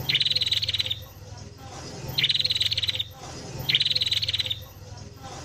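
Sooty-headed bulbul (kutilang) singing prinia-style (isian prenjak) phrases: three rapid, chattering trills of about a second each, one and a half seconds apart, over a faint low hum.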